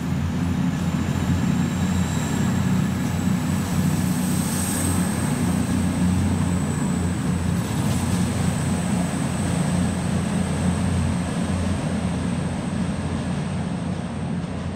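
Steady low drone of diesel train engines running under a station roof as a CrossCountry Voyager diesel multiple unit pulls out.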